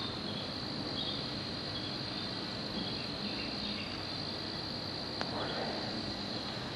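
Steady high-pitched insect drone, with a single sharp click about five seconds in.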